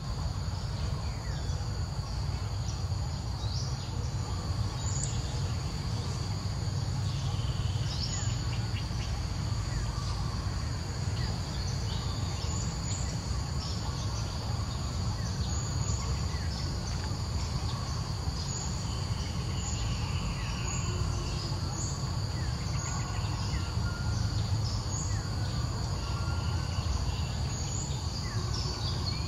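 Outdoor ambience: a steady high drone of insects, with scattered short chirps over a constant low rumble.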